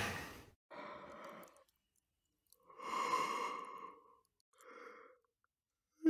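A person's yawn trailing off, followed by three soft, breathy, unvoiced sighing breaths, the loudest about three seconds in and the last one faint.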